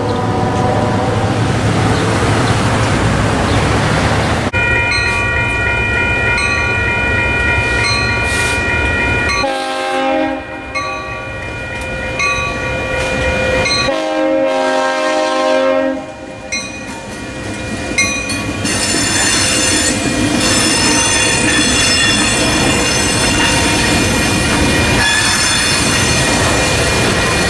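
Grade-crossing warning bells ringing and a diesel locomotive horn sounding in blasts, then a Union Pacific local freight train rolling through the crossing with squealing wheels and a steady rumble.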